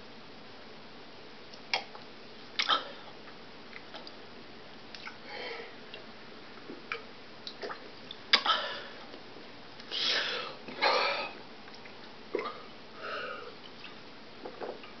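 A man drinking beer from a glass: scattered gulps, swallows and sharp clicks, with sniffs and two long breathy exhales about two-thirds of the way through.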